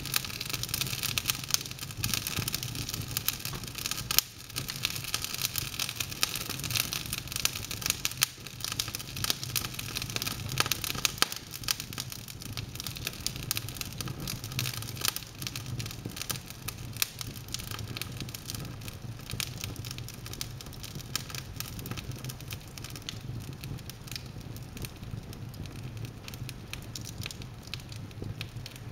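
Wood logs burning in an open fireplace, crackling and popping continuously over a soft hiss of flame, with a few louder pops and a steady low hum underneath.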